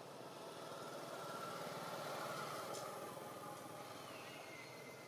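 A distant engine hum that swells and then fades, with a whine that falls in pitch near the end.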